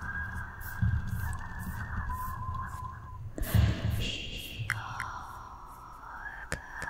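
A steady high tone held and stepping in pitch a few times, over low pulsing rumbles of hands moving close to the microphone, with a louder brief rustle about halfway through.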